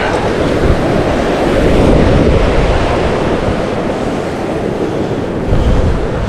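Ocean surf washing over a rock ledge, with wind buffeting the microphone, a steady noisy rush heaviest in the low end.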